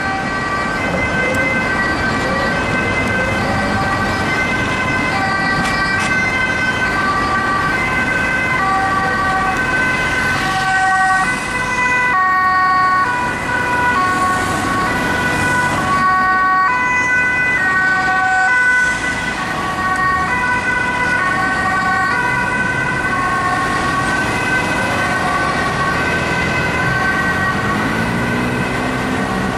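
Ambulance siren sounding in a two-tone pattern, stepping back and forth between a high and a low note about once a second, over passing road traffic.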